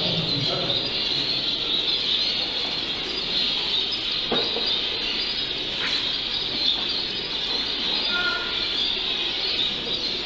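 Many caged zebra finches calling at once in a dense, steady, high chatter, with a couple of faint knocks.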